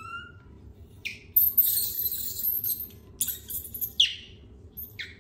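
A baby macaque's high-pitched squeaks, short and falling in pitch, about a second in, at four seconds and near the end. Between them come loud, harsh, hissy high-pitched screeches, the loudest about a second and a half in.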